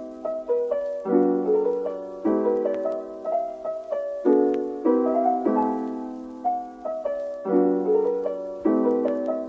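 Background music: a gentle piano tune with struck notes and chords repeating in a regular phrase.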